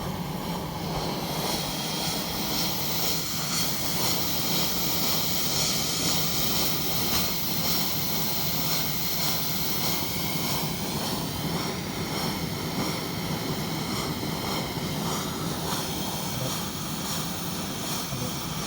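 Kerosene pressure lantern hissing steadily with a constant rushing noise; the owner suspects an air leak at the lantern's air valve.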